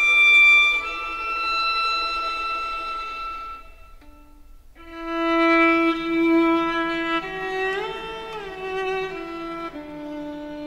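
Slow instrumental background music of long held notes, with a brief lull about four seconds in and a short slide up and back in pitch near eight seconds.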